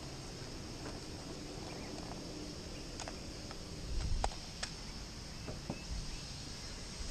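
Steady high-pitched insect drone in outdoor ambience, with a few light clicks and a dull thump about four seconds in.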